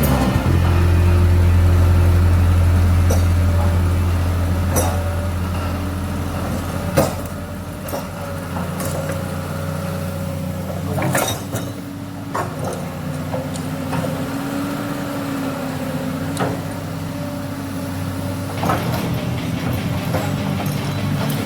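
Excavator diesel engine running, loud at first and then easing down, with occasional sharp knocks as the excavator handles the concrete box culvert.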